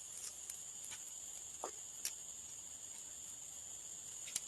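Steady high-pitched insect chorus, with a few faint clicks and one short faint rising call about a second and a half in.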